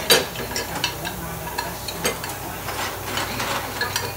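Dishes being washed at a kitchen sink: clinks and knocks of a plate and utensils over the hiss of the running tap. The sharpest knock comes right at the start, another about two seconds in.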